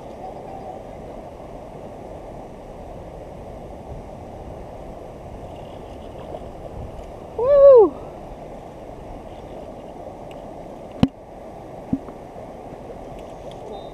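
Steady rush of creek water flowing, with a short excited whoop about halfway through and a sharp click near the end.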